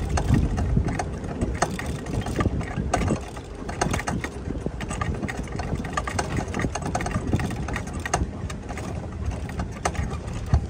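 A safari vehicle's engine running at a steady low rumble, with frequent small clicks and rattles on top.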